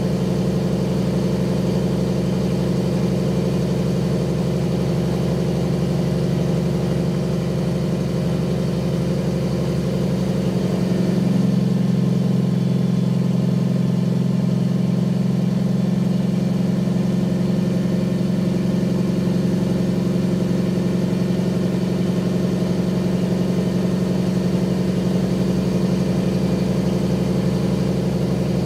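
Peterbilt 379's Caterpillar diesel engine running steadily as the truck drives. About eleven seconds in, the engine note shifts and gets slightly louder, then holds steady again.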